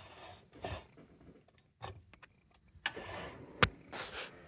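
Handling noises from a small metal kerosene lantern: scattered light clicks and short rustling scrapes, with one sharper click a little past the middle.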